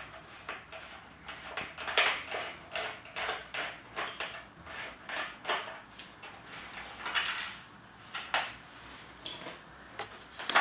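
Screwdriver turning out a small bolt from the side of a motorcycle helmet: a run of irregular clicks and scraping rasps of the tip working in the bolt head against the helmet shell.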